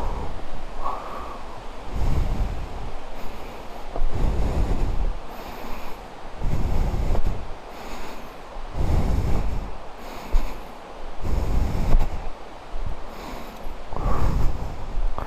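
A person breathing hard while hiking on foot. Each breath blows on the microphone as a low puff, roughly every two seconds, over a steady outdoor hiss.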